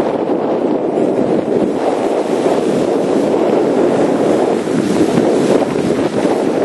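Wind from the yacht's motion blowing across the camera microphone on the deck of a motor yacht under way: a loud, steady rush of noise with no let-up.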